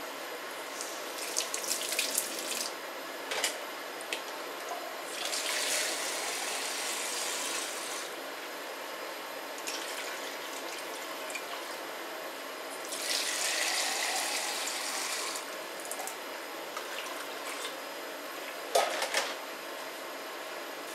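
Water pouring in two spells of a few seconds each, about five and thirteen seconds in, with a few knocks and clatters of handling around them.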